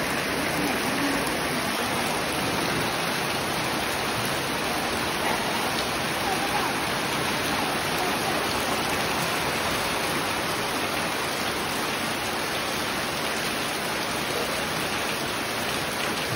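Steady monsoon rain falling on trees and puddled ground, with runoff from a roof edge splashing into a puddle.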